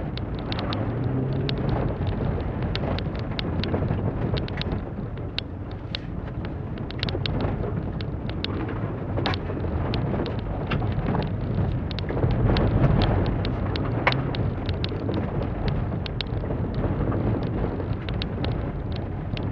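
2006 Holden Barina's four-cylinder engine revving up and down under hard driving, heard from inside the cabin, with tyre noise and frequent sharp ticks of loose stones striking the car's underside.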